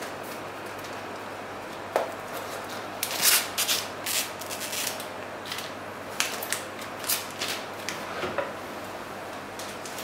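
Clear plastic wrapping crinkling in irregular bursts as it is peeled off an external hard drive enclosure by hand. It starts about two seconds in, is loudest about three seconds in, and tails off shortly before the end.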